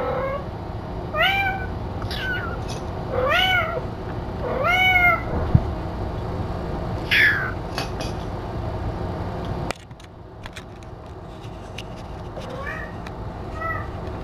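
A young kitten meowing repeatedly: a string of short, high, arching meows, then a longer falling meow, then fainter meows near the end. About ten seconds in, the steady background noise cuts out suddenly and small clicks follow.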